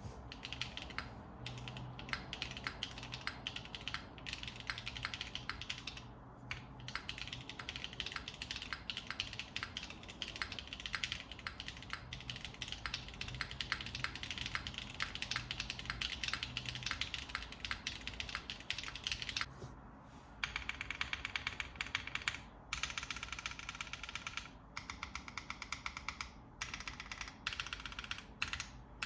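Fast, continuous typing on a Cycle7 mechanical keyboard with stock Kailh Box Taro switches, GMK keycaps and no case foam: a dense run of key clicks with a couple of brief pauses.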